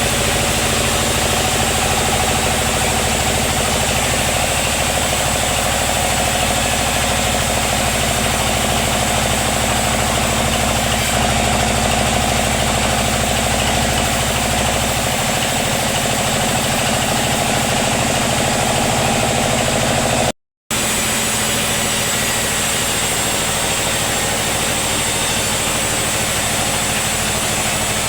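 Sawmill machinery running steadily with an engine-like hum. The deep rumble eases about fifteen seconds in, and the sound cuts out for a moment about twenty seconds in.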